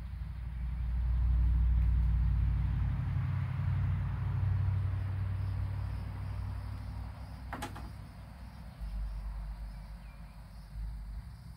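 A passing vehicle's low rumble swells over the first two seconds and fades away by about seven seconds. A single sharp click comes just before eight seconds, over faint steady insect noise.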